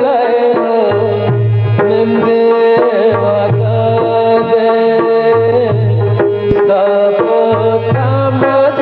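Background music: a wavering melody over a sustained drone, with low drum strokes about once a second.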